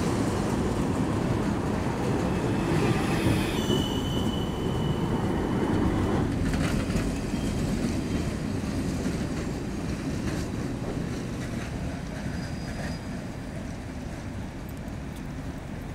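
Freight tramcars towing a Ganz articulated metro car roll along street tram rails: a steady rumble of steel wheels on track, with a thin wheel squeal about four seconds in and a few clacks later. The sound fades as the convoy moves away.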